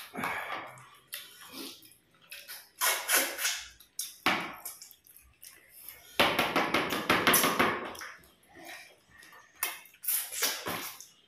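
Close-up eating sounds of people eating rice and katla fish head with their hands: chewing and smacking in irregular bursts, the longest and loudest about six seconds in.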